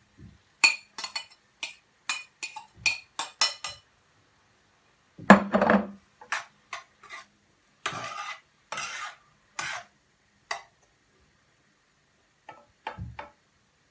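A spoon clinking against a plate in a quick run of sharp taps as diced eggplant is knocked off it into a frying pan. This is followed by a heavier clatter a little over five seconds in, then the spoon scraping and stirring through the vegetables in the pan in a series of strokes.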